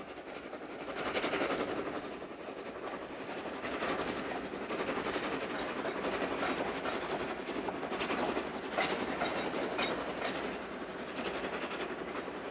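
Small preserved steam locomotive running on the line, its wheels clattering irregularly over the rail joints, louder from about a second in.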